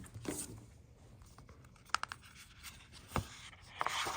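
Cardboard and paper packaging being handled and opened: rustling and scraping with a few sharp clicks and taps, and a louder rustle near the end.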